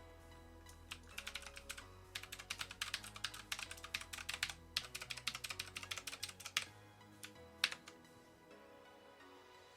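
Clicky Outemu Blue mechanical key switches on a 1stplayer Firerose MK3 keyboard, pressed in a quick run of clicks for a few seconds, then two single clicks near the end.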